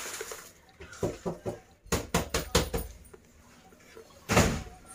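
Roasted peanuts tipped from a winnowing tray clatter into a pan: a run of quick clicks and knocks from about one to three seconds in. Near the end comes one louder, brief rustling noise.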